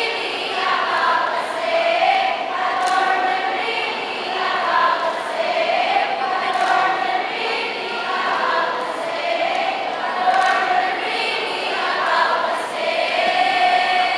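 A speech choir of young women's voices chanting in unison, in rhythmic phrases of about a second each.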